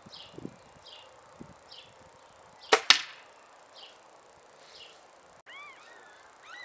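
Benjamin Trail NP .22 calibre nitro-piston air rifle firing one shot: a sharp crack about three seconds in, followed a split second later by a second sharp crack.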